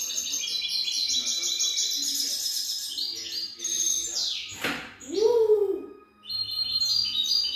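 Young European goldfinch singing: fast runs of high, twittering notes. About halfway through, a lower sound slides down and then arches up and back down. This is the loudest moment, and the twittering resumes after it.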